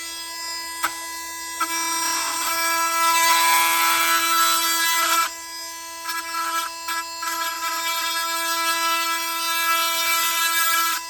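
Milwaukee M18 oscillating multi-tool running with a steady high buzz while its blade cuts through a plastic transponder case. The cutting noise gets louder and harsher about a second and a half in, eases off around five seconds in, then comes back with short dips.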